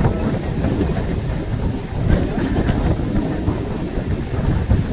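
Mumbai suburban local train (electric multiple unit) running along the track, heard from an open coach doorway: a steady, loud rumble of wheels on rails.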